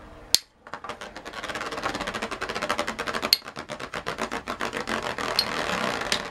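Two Beyblade spinning tops, Tornado Pegasus and Tornado Lacerta, whirring and rattling in a plastic stadium with a fast, dense clicking. There are a couple of sharper clacks, about three and about five seconds in, as the tops strike each other.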